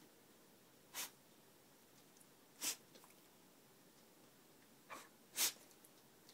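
Beagle sneezing: three short, sharp sneezes a second or two apart, the last the loudest, with a smaller one just before it.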